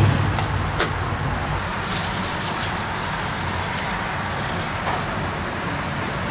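Churro dough deep-frying in hot oil: a steady sizzle with scattered crackles.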